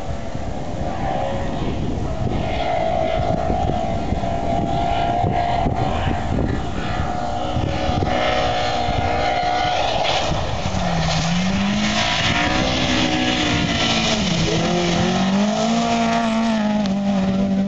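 Opel Astra rally car at full throttle on a gravel stage, heard from a distance at first with a steady high engine note, then louder as it approaches and passes close, the revs dropping and climbing again through gear changes and lifts. Wind buffets the microphone, mostly in the first half.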